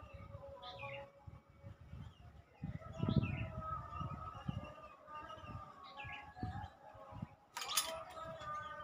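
Birds chirping and calling over steady held tones, with low knocking and handling sounds and one sharp crack about three-quarters of the way through.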